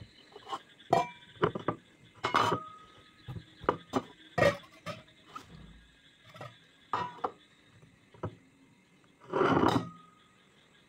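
Glass tumbler and a plate clinking and knocking as they are handled and set together: a string of short clinks, some ringing briefly, with a longer, louder handling noise near the end.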